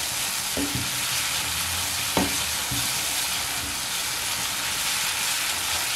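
Onion-and-tomato spice paste frying in oil in a pan over a raised flame, a steady sizzle as the masala is bhuna-fried so the spices cook through. A spoon stirs it, knocking and scraping against the pan a few times.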